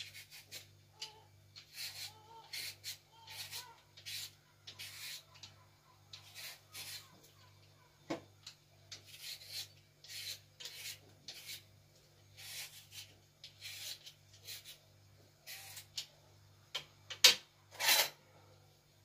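Raw potato being peeled with a small kitchen knife: short scraping strokes of the blade through the skin, roughly one or two a second. Near the end come two louder sharp knocks.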